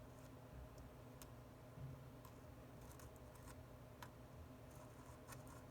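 Near silence: room tone with a handful of faint, light clicks scattered through.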